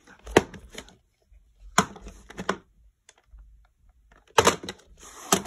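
VHS tapes being handled: sharp clicks and knocks of plastic cassettes and cardboard sleeves, a few single ones, then several close together near the end.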